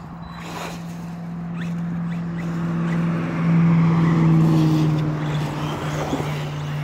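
A pickup truck driving past on the road, swelling to its loudest about four seconds in with a slightly falling tone, then easing off, over a steady low hum.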